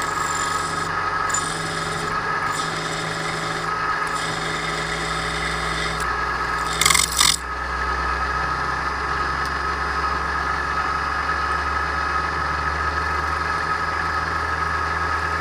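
Milling machine spindle running as a 3/16-inch drill bit cuts into a metal tube, a steady whir of motor and cutting. About seven seconds in there is a brief, louder scraping burst.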